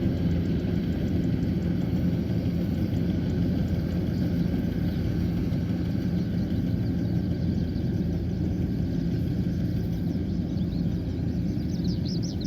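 Kubota combine harvester's diesel engine running steadily with a constant low hum, with short high chirps coming in near the end.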